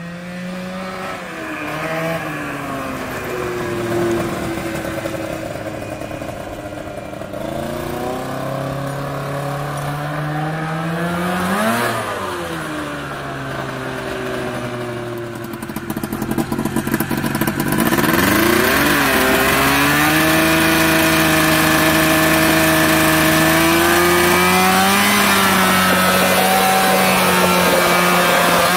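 A 370cc snowmobile engine powering a converted golf cart, revving up and down as the cart drives around, its pitch rising and falling. The pitch peaks sharply about twelve seconds in. For the last ten seconds the engine runs loud and close at high, steady revs.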